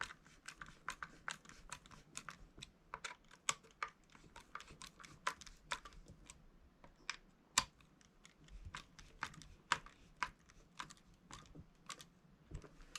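Light, irregular clicks and taps of a hand hex driver and small screws being worked into an RC truck chassis brace, a few a second, with one louder knock near the middle.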